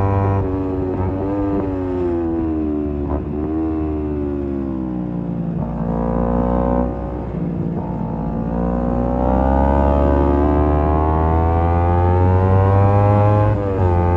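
Kawasaki Z250's parallel-twin engine through a SeaPro aftermarket muffler on the move. The engine note falls as the bike slows for several seconds, then climbs steadily as it accelerates, with a brief drop near the end as it changes gear.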